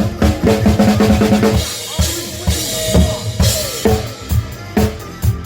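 Drum kit played over the song's backing track: a fast fill of rapid snare and tom hits, then crashing cymbals ringing for about two seconds, then a steady kick-and-snare beat picks up again near the end.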